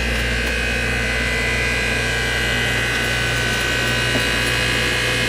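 Steady motor hum: a low drone with a whine of several steady tones over it, unchanging throughout.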